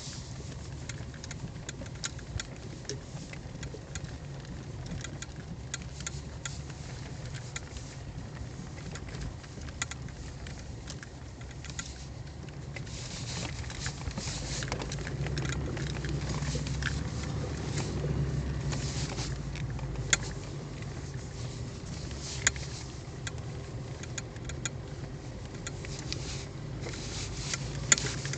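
Moskvich 2141 car driving through deep thawed-mud ruts: the engine runs steadily, pulling louder for several seconds around the middle, with frequent small clicks and rattles and a few sharp knocks near the end.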